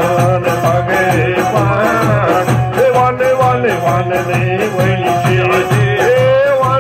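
Instrumental music of a Kashmiri devotional song: a wavering melody line over a steady, evenly repeating beat.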